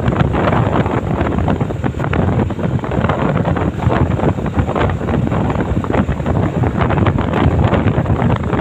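Loud wind buffeting the microphone of a vehicle moving along a road, with the vehicle's running noise underneath; steady and unbroken, with irregular crackling gusts.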